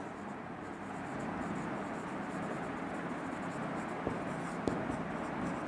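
Marker pen writing on a whiteboard: a steady, faint scratchy rubbing with a couple of small taps about four seconds in.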